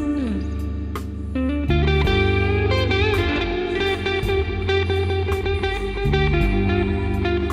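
Background blues music: guitar with bending, sliding notes over bass and a steady drum beat.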